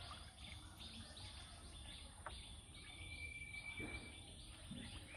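Faint outdoor ambience with a quiet, steadily repeated chirping, about three chirps a second, and one brief high steady whistle a little past the middle.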